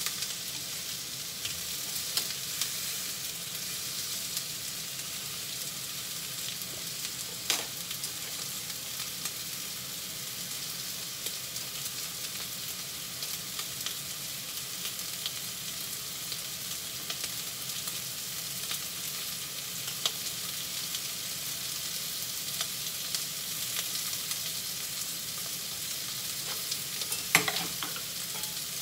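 Pork cartilage searing in a frying pan, a steady sizzle of meat in hot fat, with three sharp clicks spread through it.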